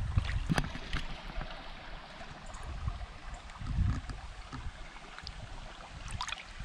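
Flowing trout-stream water with wind buffeting the microphone in uneven low gusts, and a few brief sharp sounds about half a second in, at one second and near the end.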